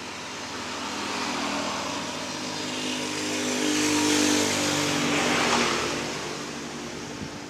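A motor vehicle passes by: its engine grows louder to a peak about four to five seconds in, then fades as its pitch drops.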